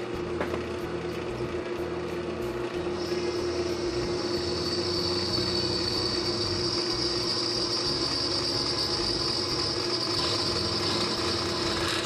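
Drill press running, its twist bit cutting a pilot hole through a metal flat bar, with a steady motor hum. About three seconds in a high-pitched cutting squeal joins in and grows louder.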